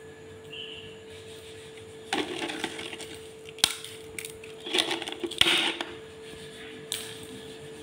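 Crunching and crackling in two short bouts, about two seconds in and again around five seconds, with a few sharp clicks between and near the end, as a pet macaque handles and chews its food. A steady low hum runs underneath.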